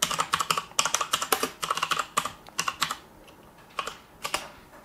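Typing on a computer keyboard: a quick run of keystrokes for about three seconds, a short pause, then a few more keys near the end.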